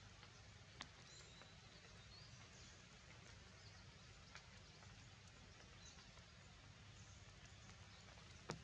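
Near silence: faint outdoor forest ambience with faint high bird chirps and three sharp clicks, the loudest near the end.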